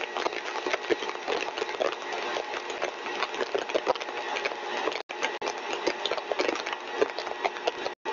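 Lab compressor rig running at full design speed as it is throttled to lower flow: a steady whirring noise with a faint whine and many rapid small clicks and rattles. The sound cuts out for an instant about five seconds in.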